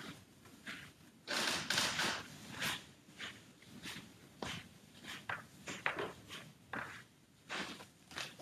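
Shuffling footsteps with swishing cloth and rustling paper as a person in a long robe gets up and walks a few steps: a string of irregular soft knocks and swishes.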